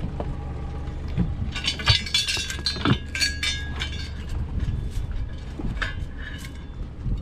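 A small boat's motor running at low speed, with a run of metallic clinking and rattling from gear on board from about a second and a half in until about four and a half seconds in.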